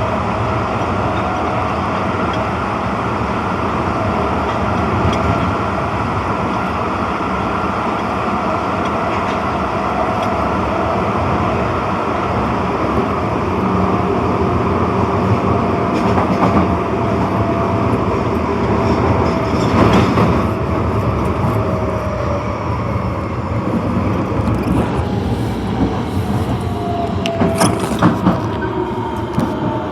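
Osaka Metro Tanimachi Line 22 series subway car running, with steady wheel-on-rail noise and a high-pitched running whine. The whine's tones slide down in pitch through the middle, then new tones rise near the end, along with several sharp clicks.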